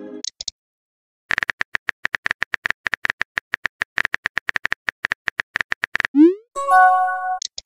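Texting app sound effects: rapid, even keyboard-tap clicks for about four and a half seconds as a message is typed, then a short rising swoosh as it is sent. This is followed by a brief electronic chime of a few held tones near the end.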